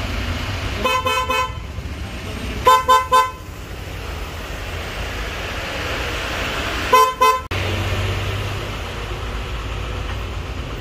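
Aftermarket VW Polo-type car horns, wired up for a test, sounding in three quick bursts of short toots: about a second in, about three seconds in and about seven seconds in.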